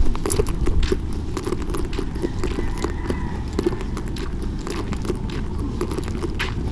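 Footsteps on a dirt road, an irregular tapping about one or two steps a second, over a steady low rumble.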